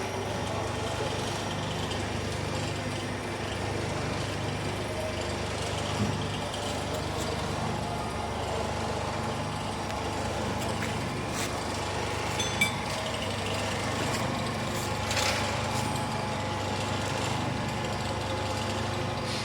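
Concrete-block press machine running on its test run: a steady engine-like drone, broken by a few short knocks.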